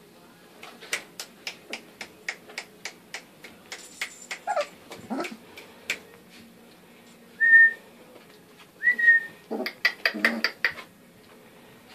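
German shorthaired pointer puppies playing and vocalising. A run of quick, evenly spaced clicks fills the first half, broken by a short yelp about five seconds in. Two short high whistle-like squeaks follow, then a quick burst of yips and squeals near the end.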